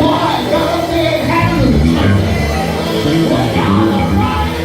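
Live gospel quartet music: singing voices over electric guitar, bass guitar and keyboards, played loud and steady.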